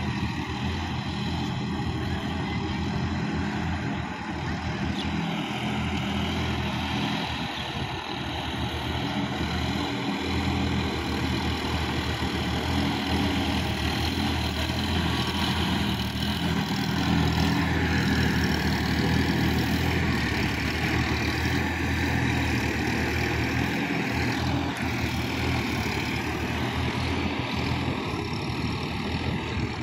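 Diesel tractor engine running steadily under load while working a flooded rice field, a little louder for a few seconds around the middle.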